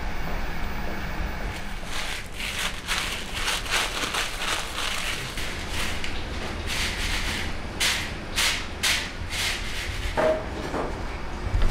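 Dried raisins rustling and rattling in a plastic colander as they are stirred and rubbed by hand, in irregular strokes starting about two seconds in, over a steady low kitchen hum.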